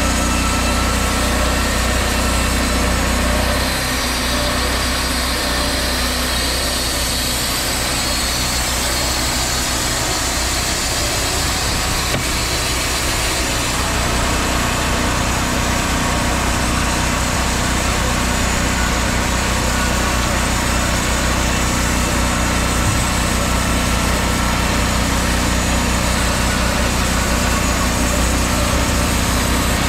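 Wood-Mizer LT50 portable band sawmill running steadily as its sawhead cuts a log into boards. The engine note shifts about four seconds in and again around fourteen seconds in.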